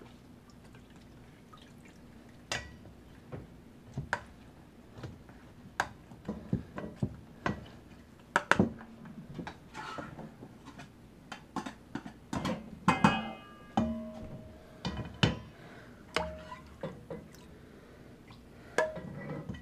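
Irregular clicks, taps and knocks of kitchen utensils: a spatula pressing cooked chicken bones in a plastic colander, and a ladle scraping and clinking against a slow-cooker crock and a steel bowl, with broth dripping through the strainer. A few of the knocks ring briefly like metal, most of all about two-thirds of the way through.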